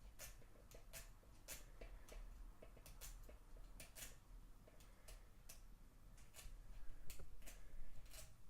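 Faint, irregular metallic clicking and ticking of lock pick wires and a tension tool working the levers inside a Chubb Battleship lever padlock, with a few louder clicks near the end.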